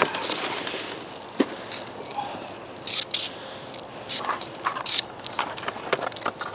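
Irregular clicks, scrapes and rustles of handling noise, with a few sharper knocks scattered through.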